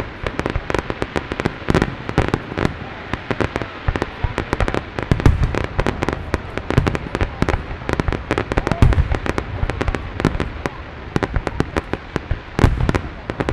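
Fireworks going off in rapid succession: a dense run of pops and crackles with deeper booms from larger shells several times.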